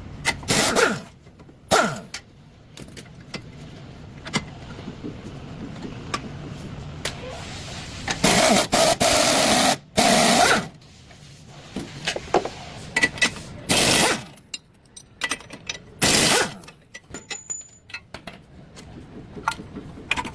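Workshop repair sounds: several short bursts of a power tool, the longest lasting about two seconds midway, among sharp clicks and knocks of metal tools on car parts.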